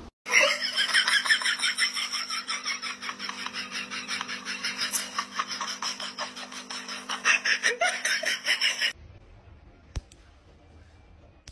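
Loud, rapid pulsing laughter that cuts off abruptly about nine seconds in.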